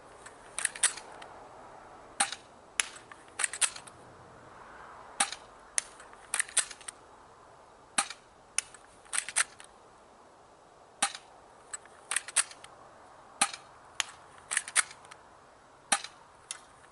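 Crosman Stinger P9T airsoft pistol being fired repeatedly: sharp snapping shots every second or two, often with a quicker click or two close beside them, emptying the magazine.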